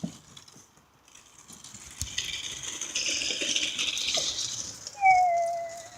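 Small electric RC toy motor whirring steadily for about three seconds after a throttle command. Near the end comes a brief high-pitched squeal that falls slightly in pitch.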